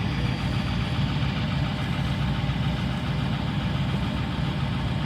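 A truck engine idling steadily with an even low throb.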